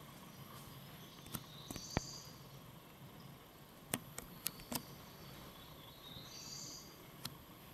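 Faint high chirps from swifts roosting inside a temple, heard twice, with a scatter of sharp clicks in between.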